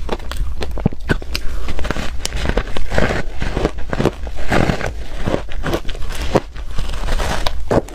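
Close-miked crunching of a slab of frozen crushed ice being bitten and chewed: a dense, irregular run of sharp cracks and crackles.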